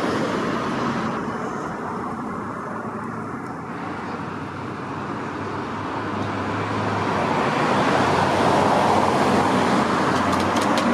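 Road traffic noise, with a vehicle growing louder through the second half.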